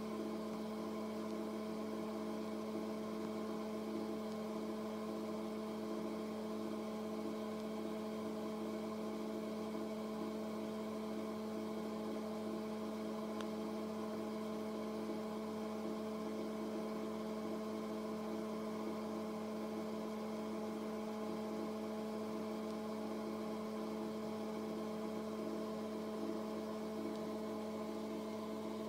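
A steady, even hum at one constant pitch.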